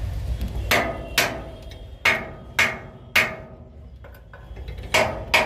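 Hammer striking steel: seven sharp ringing blows, mostly in pairs about half a second apart, over a low rumble that fades within the first second.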